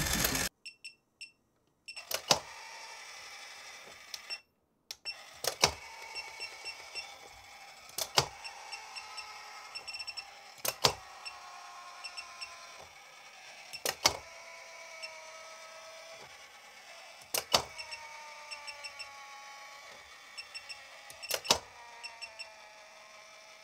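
Small DC motor and gearing inside a Doraemon pop-up toy running slowly on about half a volt from a bench power supply: a faint whine that slides slowly down in pitch, broken by a sharp click every three to four seconds as the mechanism steps.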